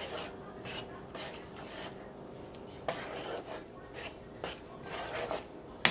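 A spoon stirring chicken in a thick, creamy sauce in a skillet: soft, wet scraping strokes repeating roughly every half second.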